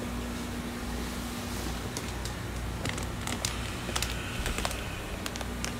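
Light clicks and crinkles of plastic fish bags being handled, scattered through the middle and later part, over a steady low hum with a faint steady tone.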